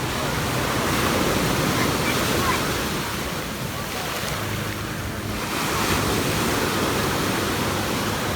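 Storm surf: rough sea waves breaking and washing ashore, swelling up about a second in and again past the middle, with wind on the microphone.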